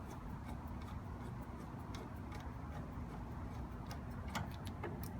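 Scattered light clicks and ticks of hose fittings being unscrewed and pulled off a tankless water heater's service valves, a little busier near the end, over a low steady hum.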